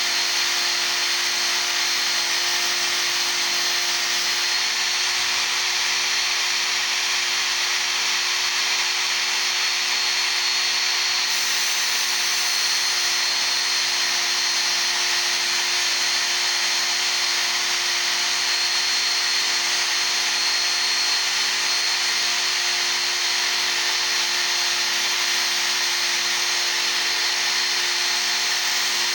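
Work Sharp Ken Onion Edition electric belt sharpener running steadily, with a steel chisel pressed against its moving abrasive belt: a steady grinding hiss over the motor's whine.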